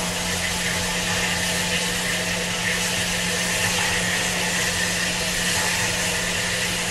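Bulleid Battle of Britain class steam locomotive No. 34067 'Tangmere' standing with a steady, loud hiss of escaping steam.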